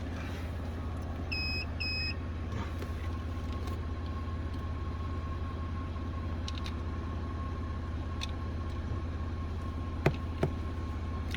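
Steady low rumble of an idling vehicle, with two short electronic beeps about one and a half and two seconds in and a few sharp clicks near the end.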